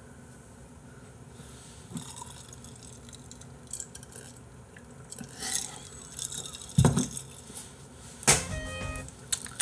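Drinking glass knocking and clinking against a desk as it is handled and set down, with a few dull thumps and light clicks in the second half.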